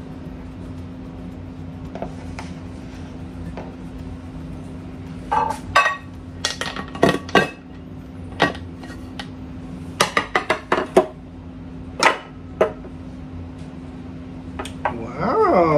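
Glass cake plate clinking and knocking against a bundt pan and the countertop as the pan is flipped over and lifted off the cake: a dozen or so sharp clinks from about five seconds in. Near the end comes a short squealing scrape of the plate sliding on the counter.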